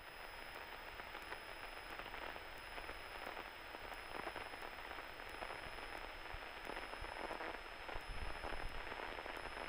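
Faint, steady crackling hiss on the cockpit radio and intercom audio between transmissions, with a thin high electrical whine underneath.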